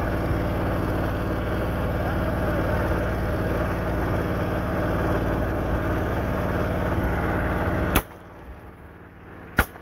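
Boat engine running steadily, then cutting off abruptly with a sharp crack about eight seconds in. About a second and a half later there is a single sharp 12-bore shotgun shot.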